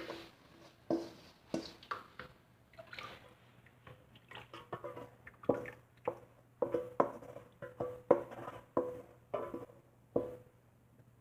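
Thick rice-flour batter being scraped and poured into a metal cooking pot: a spoon knocks against the metal again and again, each knock ringing briefly, with wet plops of batter.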